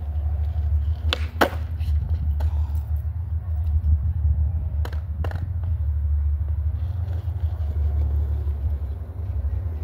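Skateboard rolling on concrete with a steady low rumble, broken by two pairs of sharp clacks of the board, one about a second in and one about five seconds in.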